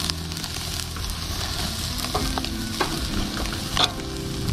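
Lamb loin chops sizzling over hot charcoal on a kettle grill grate, with a few sharp clicks of metal tongs against the grate and chops as they are turned.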